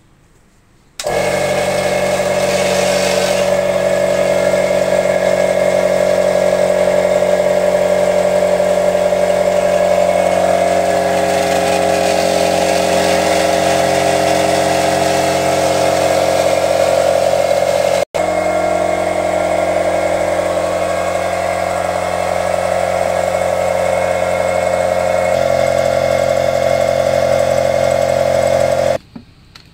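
Ryu RCP-75 electric air compressor switching on about a second in and running loudly and steadily as it fills its tank, then stopping abruptly near the end.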